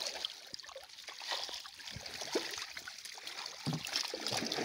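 Muddy water sloshing and splashing inside a fishing net's pocket full of live fish as a hand scoops through the catch, with irregular small splashes and water trickling through the mesh as the net is lifted.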